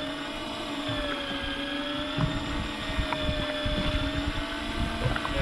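Electric deep-drop fishing reel winding in line with a fish on, its motor giving a steady whine whose pitch wavers slightly, over a low, uneven rumble.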